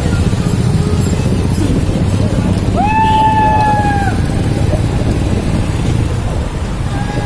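Motorcycles and traffic running together in a steady low rumble, heard from within a moving procession of bikes. About three seconds in, a single tone glides up and holds for about a second.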